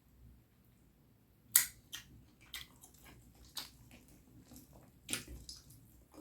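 Close-miked wet eating sounds from a mouthful of curry and rice: a sharp smack about a second and a half in, then a string of softer wet clicks and squelches.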